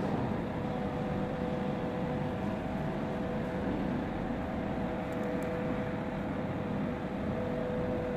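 Steady mechanical hum and hiss of the room's background noise, with two steady tones running through it.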